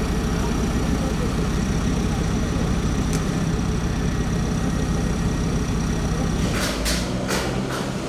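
A heavy engine idling steadily with a low rumble. Near the end comes a quick series of sharp metallic knocks.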